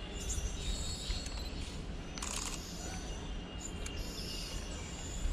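Steady low rumble of a distant approaching electric multiple-unit train under open-air background noise, with a few faint high chirps and a brief hiss a little after two seconds in.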